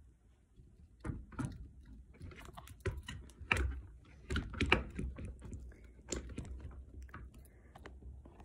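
Irregular clicks, taps and rustles of paper and small objects being handled on a wooden table, the loudest knocks between about three and five seconds in.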